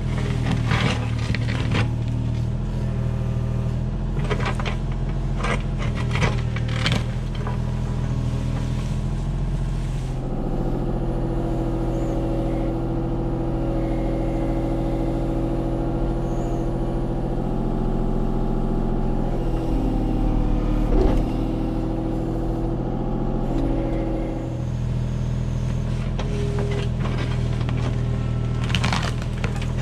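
Kubota U35-4 mini excavator's diesel engine running steadily, with its hydraulics whining under load through the middle stretch. Sharp knocks and cracks come early on and again near the end, as the machine works brush and dead wood.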